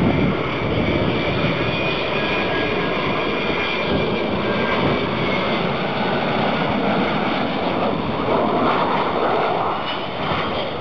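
Jet engines of a Boeing 737 airliner on final approach, passing low overhead with a steady loud rush of engine noise. A high whine over it drifts slowly down in pitch.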